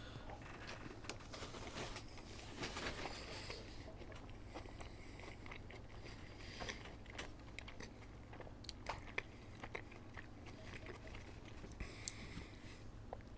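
A person chewing and biting into McDonald's food, with many small scattered mouth clicks and a denser crunchy stretch a few seconds in.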